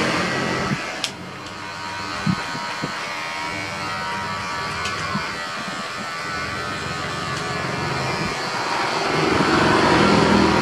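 Electric hair clippers buzzing steadily as they cut short hair. The buzz is louder at the start, drops about a second in, and swells again near the end.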